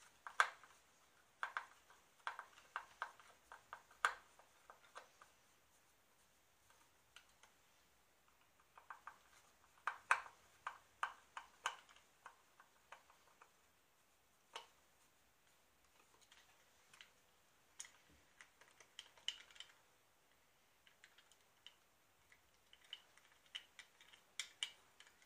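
Irregular clusters of small, sharp plastic clicks and taps: plastic single-coil pickup covers and the pickups being handled and worked loose.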